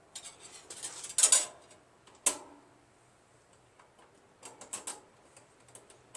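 Small metal clicks and rattles of choke-cable and lever parts being handled and fitted: a cluster of clicks in the first second and a half, one sharp click a little past two seconds, then a few more near five seconds.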